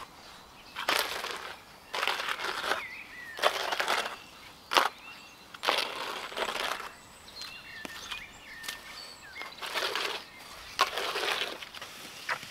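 Steel shovel scraping through fresh concrete in a wooden foundation form: a gritty scrape every second or so, with uneven pauses and a sharp clack or two.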